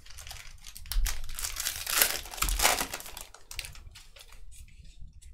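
Foil wrapper of a Panini Prizm football card pack being torn open and crinkled, loudest for a couple of seconds about one second in, then lighter rustling as the cards come out.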